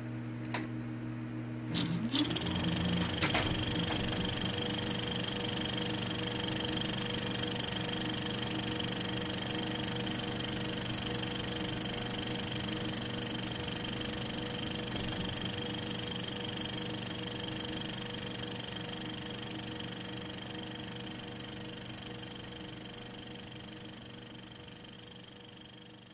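Steady mechanical whir with a low hum and a high whine. A few clicks and a short pitch glide come about two seconds in, then it runs evenly and fades out near the end.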